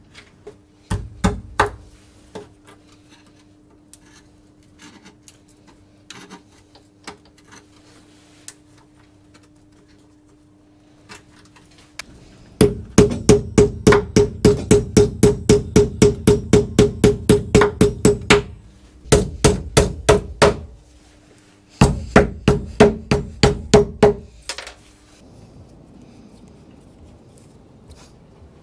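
Steel hammer blows on the threaded studs of a boat's P-bracket backing plate, driving the bolts down through the hull to free the bracket. There are a few knocks near the start, then three fast runs of ringing metal-on-metal strikes at about four a second, with short pauses between the runs.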